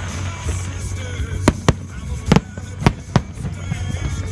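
Aerial fireworks bursting: a run of about five sharp bangs in quick succession in the second half, over music playing in the background.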